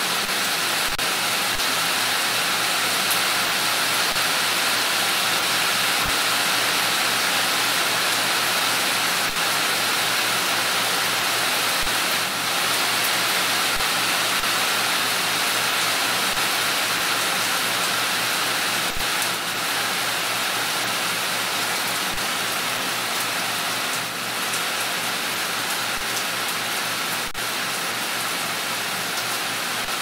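Steady rain falling, with a soft tap from a nearby drop every few seconds.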